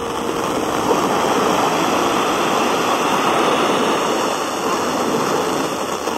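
Steady FM static hiss from a Sangean portable radio's speaker tuned to 97.9 MHz: the weak, distant station has dropped out into noise between the song and the next announcement.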